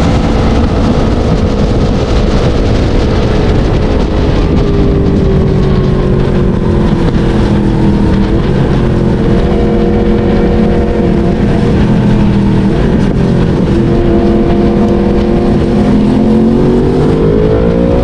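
Yamaha MT-10's crossplane inline-four running through a LeoVince decat exhaust while riding. The engine note falls over the first few seconds as the revs drop and holds fairly steady for a while. It then climbs steeply near the end as the bike accelerates.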